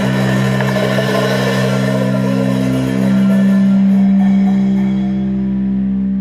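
Metal band letting a final chord ring out at the end of a jam: low guitar and bass notes held steady, one swelling louder about three seconds in, over a cymbal wash that thins out in the second half.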